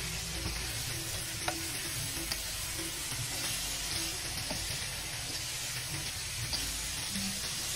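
Fried tempe strips, anchovies and peanuts sizzling in a pan while a spatula stirs and tosses them. A steady sizzle with a few light clicks of the spatula against the pan now and then.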